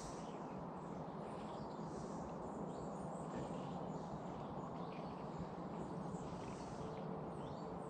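Faint birdsong, many short chirps scattered through, over a steady low outdoor background hiss.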